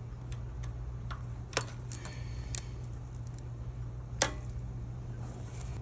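Scattered small metallic clicks and taps of a screwdriver and fingers working on the unloader valve of a Husqvarna pressure washer pump as it is taken off, with one sharper click about four seconds in.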